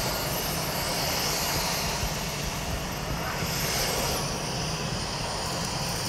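Dyson Omniglide cordless vacuum cleaner running as it is steered across a hard floor: a steady rush of suction with a thin high whine that drops in pitch about four seconds in.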